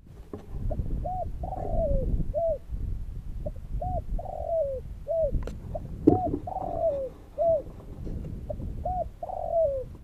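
Spotted dove cooing: its phrase of a few short coos ending in a longer falling coo, repeated four times, over a low rumble.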